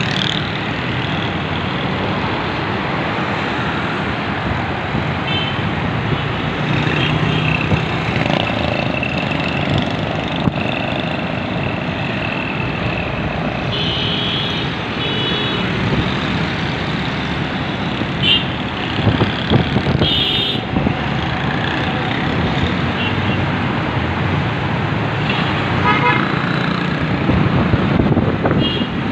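Steady road traffic of cars, motorcycles and auto-rickshaws passing below, with several short horn toots scattered through.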